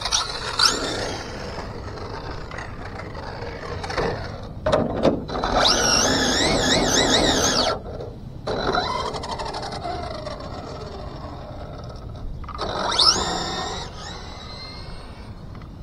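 Team Associated DR10 RC drag car's brushless electric motor whining in throttle bursts: a wavering whine for about two seconds in the middle, then a quick rising whine as the car launches down the street a little before the end.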